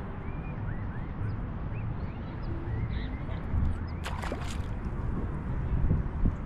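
Birds calling: many short high chirps, with one louder, harsh call about four seconds in, over a steady low rumble.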